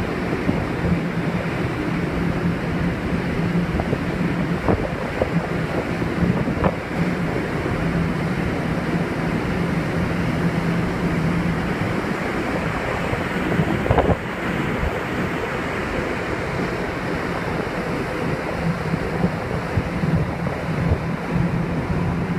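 Wind blowing across the microphone and sea rushing past a ferry at sea, over a steady low hum from the ship. A few short knocks, the loudest about fourteen seconds in.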